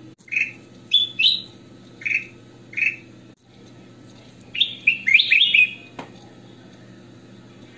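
Caged ruby-throated bulbul (kutilang emas) singing: four short clear whistled phrases in the first three seconds, then a quicker, fuller run of notes about five seconds in. A single sharp click follows near six seconds.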